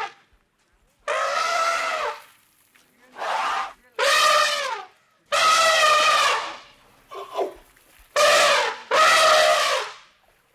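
An animal calling loudly again and again: about seven long, pitched calls, each lasting up to a second, mostly steady in pitch with short gaps between.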